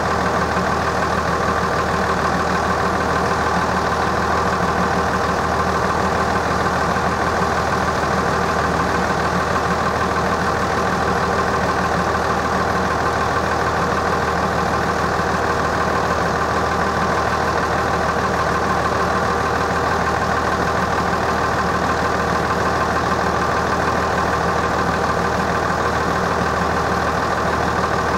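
Level crossing warning bells ringing continuously and evenly while the crossing is closed for an approaching train.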